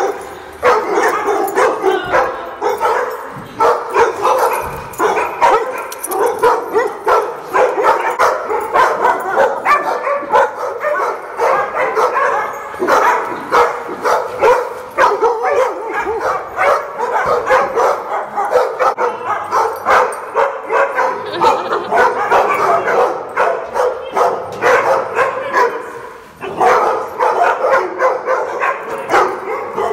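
Many dogs barking and yipping at once, a dense, unbroken chorus with a brief lull about three-quarters of the way through.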